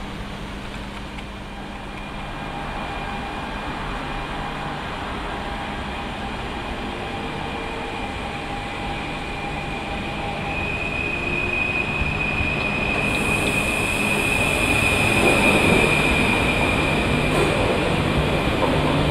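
PKP Intercity ED160 (Stadler FLIRT) electric multiple unit pulling into a station platform, with a steady high-pitched squeal that grows louder in the second half as the train comes alongside.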